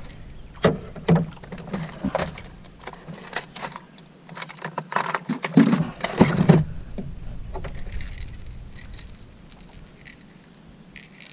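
Knocks and clunks of gear being handled in a canoe, scattered through the first seven seconds with a loud cluster about five to six and a half seconds in. A steady high insect drone runs underneath.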